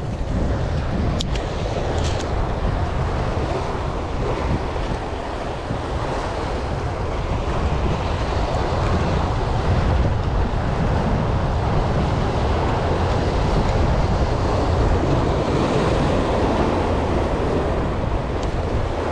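Surf washing and breaking over the rocks of a sea jetty, with wind buffeting the microphone in a steady low rumble.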